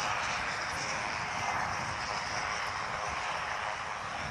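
Jet aircraft flying overhead, its engine noise a steady rush that is a little louder in the first half and eases slightly towards the end.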